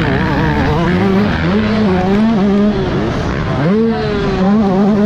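Yamaha YZ125 two-stroke motocross engine under hard throttle, its pitch rising and falling as the rider works the throttle. It falls off about three seconds in and climbs sharply again just after.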